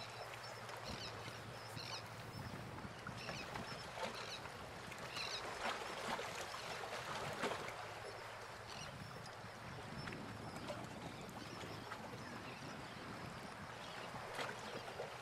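Quiet outdoor ambience: faint handling of rope lines and small metal fittings on an aluminium dinghy boom, with scattered small clicks and a few short, distant bird calls.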